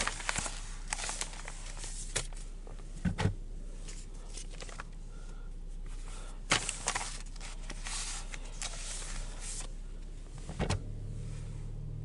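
Newspapers being handled and stacked: rustling and shuffling of newsprint with a few sharper knocks, over a steady low hum.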